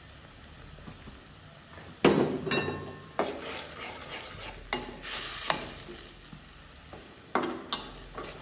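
Slotted metal spatula scraping and knocking against a metal kadai, stirring onions with ginger-garlic paste frying in mustard oil over a low sizzle. The strokes start about two seconds in and come irregularly, roughly one every second.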